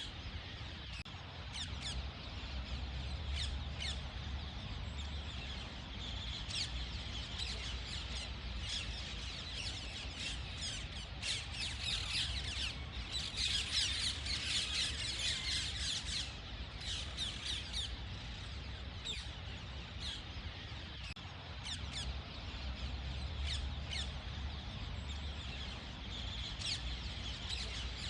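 Ringneck parrot calling: a run of short, sharp squawks and chirps, coming thickest in a burst of rapid chatter about halfway through.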